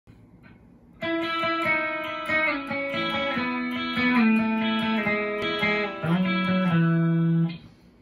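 Electric guitar, a 2011 Gibson Les Paul Special Pro with DiMarzio Air Classic pickups, played on its bridge pickup. It plays a short single-note phrase starting about a second in and ends on a held low note that cuts off shortly before the end.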